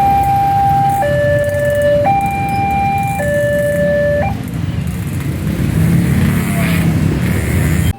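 Railway level-crossing warning siren alternating between a high and a low tone about once a second, stopping about halfway through. A steady low rumble carries on after it.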